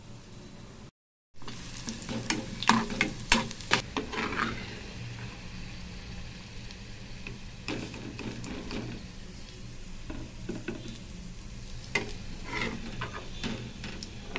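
Sliced onions sizzling as they fry golden brown in oil in a non-stick kadai, with a steel ladle scraping and clinking against the pan as they are stirred. The ladle clinks come thickest a couple of seconds in and again near the end.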